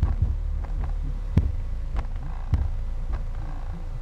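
Infinity 12-inch car subwoofer playing a bass-heavy track, a steady deep bass tone with a punchy beat about every 0.6 seconds. It is being driven at about 410 watts into 3.5 ohms on an amplifier power test, just backed down from clipping.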